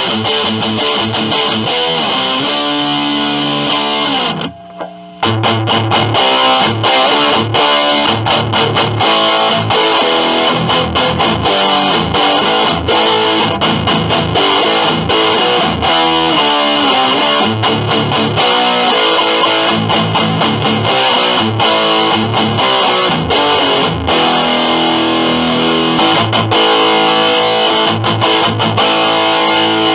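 Electric guitar played through a Digitech Death Metal distortion pedal into a small 1x8-inch Squier practice amp, with heavily distorted, fast-picked metal riffing. The playing stops briefly about five seconds in, then picks up again.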